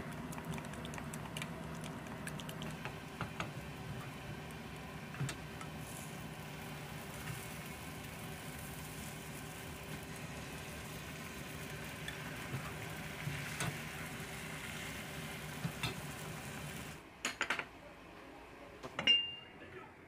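Food cooking in a pan on a stove, a steady sizzling or simmering over a low fan-like hum, with light clinks of a utensil against the pan. The cooking noise stops about three seconds before the end, leaving a few clicks and a short high beep.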